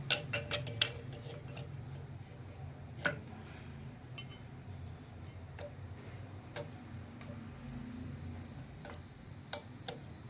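Light metallic clicks and clinks from fitting a metal trigger wheel onto the end of an engine's crankshaft. A quick run of clicks comes at the start, then single ticks every second or two, over a low steady hum.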